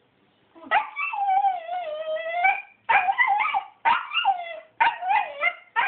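Dog answering in a drawn-out, wavering howl-like whine, then three shorter whining calls, the "talking" vocalisation its owner hears as "I wanna".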